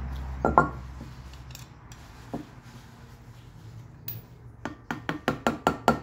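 Ball-peen hammer tapping metal at a car's front wheel hub, a quick run of light metallic taps about five a second starting near the end, to drive out the inner wheel-bearing collar. Before it, a metallic clank about half a second in and a single knock a little past two seconds.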